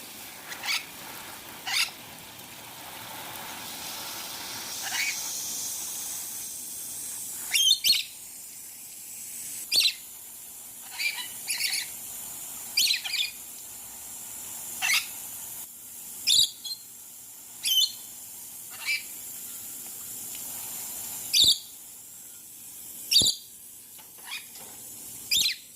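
Lorikeets giving short, sharp, high-pitched calls, about fifteen of them at one every second or two, over a faint steady hiss.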